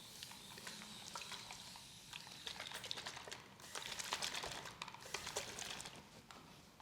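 Hands rubbing and scratching through hair and over skin in a massage, with many small crackling clicks and louder scratchy bursts from about two and a half to five and a half seconds in.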